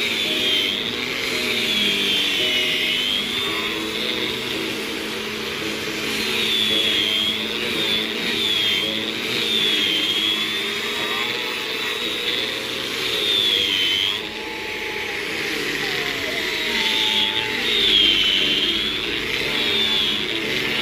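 Electric angle grinder with a sanding disc running continuously and sanding coconut wood, its high whine dipping and rising in pitch over and over as the disc is pressed into the wood and eased off.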